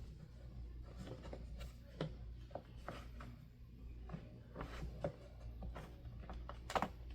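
Light plastic clicks, taps and rubbing from a Honeywell desk fan's front grille being handled and turned against the fan guard to line its holes up with the screws.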